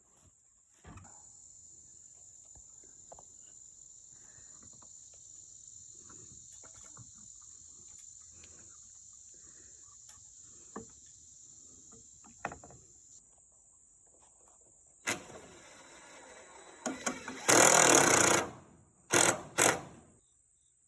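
Insects, crickets or katydids, chirring steadily at a high pitch. Near the end, a cordless power tool runs in a few short loud bursts, the longest about a second.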